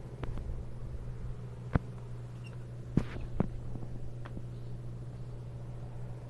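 Handling noise: a few sharp clicks and knocks, the loudest about two and three seconds in, over a steady low hum.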